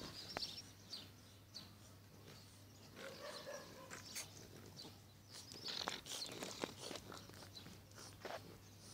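French bulldog panting close by, with irregular breathy bursts and a few sharp clicks.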